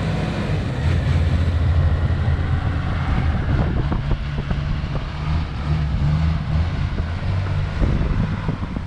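A vehicle engine running with a steady low hum that wavers a little in level, with wind noise on the microphone.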